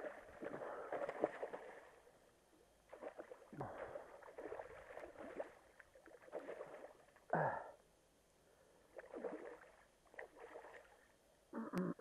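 Splashing and sloshing in irregular bursts as a hooked cock salmon thrashes at the surface close in to the bank, about six bouts in a few seconds.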